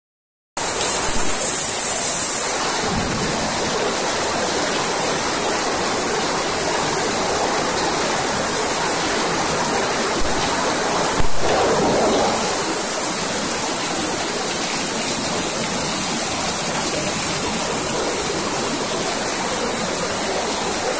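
Fried rice sizzling in a street vendor's wok: a steady loud hiss, with one sharp knock about 11 seconds in.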